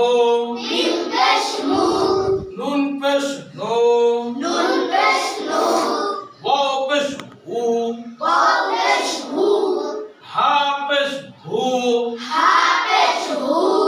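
Children's voices, with the teacher, chanting Arabic letters with their vowel marks in unison. It is a sing-song recitation of short held syllables, one phrase after another.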